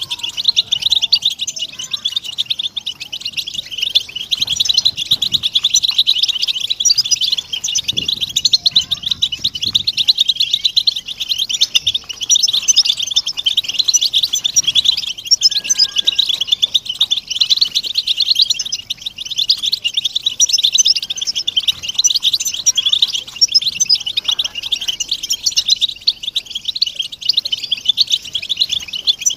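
A flock of European goldfinches chattering and twittering together: a dense, unbroken mass of many overlapping high calls, the group chatter used to stimulate caged male goldfinches to sing.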